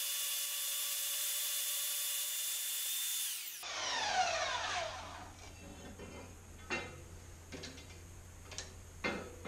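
Small vertical bandsaw cutting through a 3/4-inch square mild steel bar with a steady whine, then switched off about three seconds in, its pitch falling as the motor winds down. A few light knocks follow.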